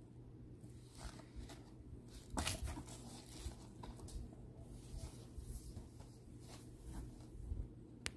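Rubber-gloved hands handling a printed cardboard card and a cardboard toy box: soft rubbing and light taps. The contact is loudest about two and a half seconds in.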